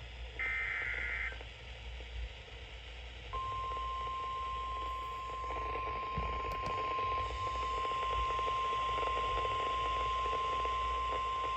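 NOAA Weather Radio alert signal: about half a second in, a short burst of SAME digital header data tones, then from about three seconds in the steady 1050 Hz warning alarm tone, one unbroken high beep, announcing a severe thunderstorm warning. Steady radio hiss underneath.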